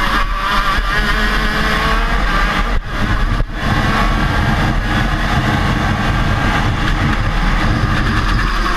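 KZ shifter kart's 125 cc two-stroke engine running hard on track, heard from onboard, its pitch rising and falling through the corners. Two short dips in level come about three seconds in.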